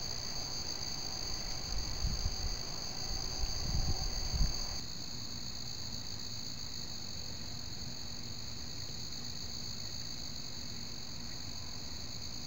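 Steady chorus of night insects: a continuous high-pitched trill at two pitches. For the first five seconds a low, uneven rumble sits under it and cuts off abruptly.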